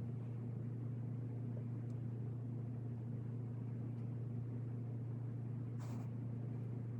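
Steady low hum with no change in level, and a brief rustle a little before six seconds in.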